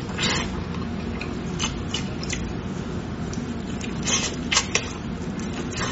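Close-up eating sounds of braised pig tail: irregular wet chewing and lip smacks as the meat is bitten and pulled off the bone, with a cluster of sharper smacks about four seconds in.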